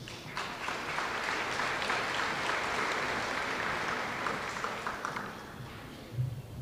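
Audience clapping, a steady patter of many hands that dies away after about five seconds.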